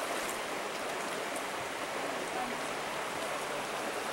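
Creek water running, a steady even rush.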